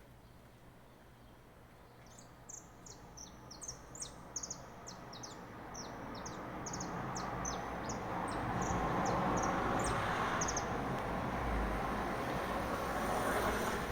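A small bird calling a quick series of short, high chirps for several seconds, over a rising rush of noise that becomes the loudest sound in the second half.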